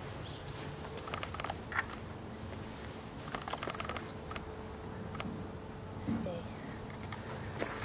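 An insect chirping in a high, evenly pulsing tone that carries on steadily, with a few faint clicks and rustles of movement on the grass.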